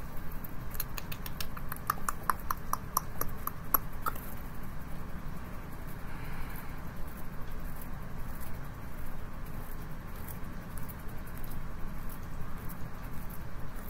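Tarot cards being shuffled by hand: a run of quick card clicks, about four or five a second, for the first few seconds, then softer, scattered shuffling ticks over a steady low hum.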